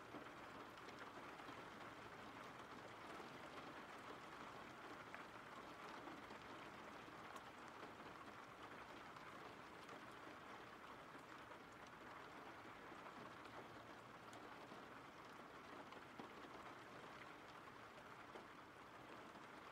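Faint, steady rain: an even hiss of rainfall with a few scattered drop ticks.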